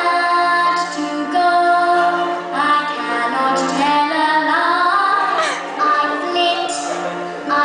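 Women singing a song over steady musical accompaniment.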